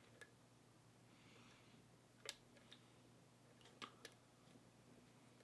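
Faint, scattered metallic clicks of a lock pick and tension wrench working the pins inside an Abus 72/40 padlock during single-pin picking, about five in all, the clearest a little past two seconds in.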